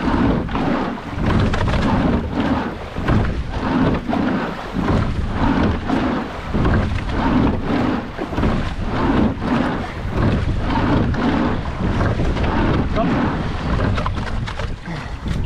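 Rumbling rush of water and wind on a camera microphone fixed in a rowing boat under way, swelling and dipping about every two seconds with the rowing strokes.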